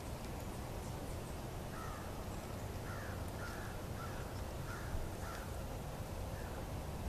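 A series of about seven short animal calls in quick succession, starting about two seconds in, over a steady low outdoor rumble.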